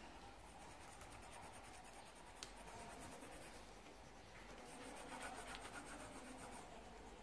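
Pencil scratching faintly on paper as a picture is coloured in, a little louder for a stretch near the end, with one small click about two seconds in.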